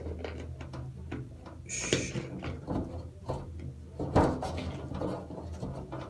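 Cap of a plastic water bottle being twisted on by hand, with light plastic clicks and crackles and a louder knock about four seconds in. A short hiss about two seconds in, over a steady low hum.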